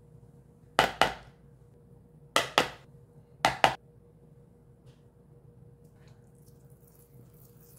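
Three pairs of sharp knocks from hard kitchen objects striking, each pair two quick strikes close together, spread over the first four seconds.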